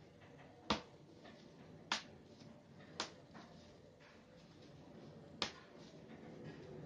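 Four sharp, separate clicks, about a second or more apart, the third and fourth with a longer gap between them.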